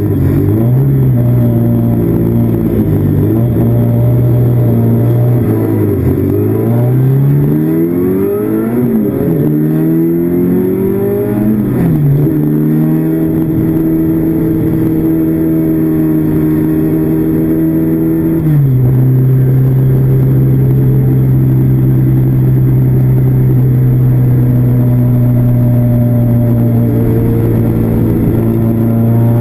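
Classic Mini's four-cylinder A-series racing engine, heard from inside the cabin, accelerating hard with its note climbing and dropping sharply at two quick gear changes. It then holds steady high revs and steps down to a lower steady note about two-thirds of the way through.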